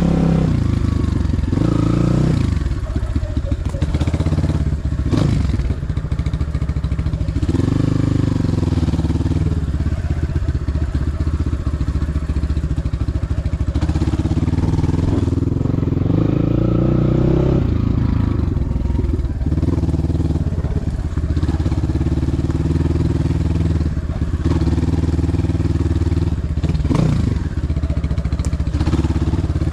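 Motorcycle engine running while riding, its pitch rising and falling several times with the throttle. A few sharp knocks break in along the way.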